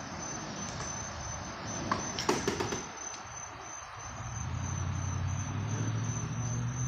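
Steady high-pitched insect chirring in the background. A low steady hum comes in about four seconds in.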